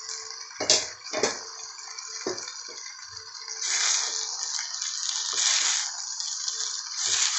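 Boiled basmati rice tipped from a steel strainer into a hot kadhai of fried vegetables, with a few knocks in the first couple of seconds. Then bursts of hissing sizzle and spatula scraping as the rice is stirred into the vegetables.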